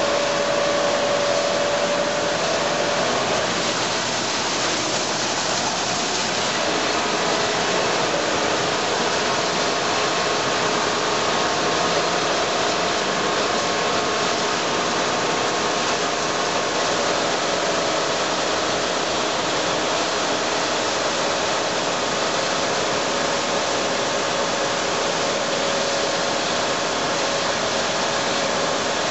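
Combine harvester running steadily while harvesting soybeans: an even mechanical din with a faint steady whine.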